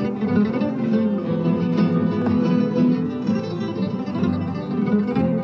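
Nylon-string flamenco guitar playing a rondeña in a steady stream of plucked notes over ringing bass strings, in the rondeña's open tuning with the low string dropped to D.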